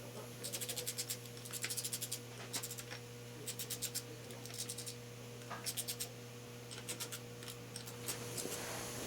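Ratchet wrench clicking in repeated short bursts of rapid clicks, about once a second, as the rocker shaft's hold-down nuts on a Triumph TR6 engine are drawn down a little at a time. A steady low hum runs underneath.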